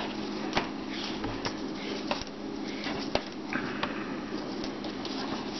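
Thin micro cord rustling as it is drawn through a stitched paracord bracelet, with a few light ticks from handling, over a steady low hum and hiss.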